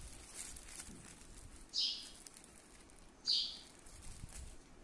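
A bird chirping in short, high calls about every second and a half, three times. Under it is faint rustling from a plastic-bagged speaker being handled.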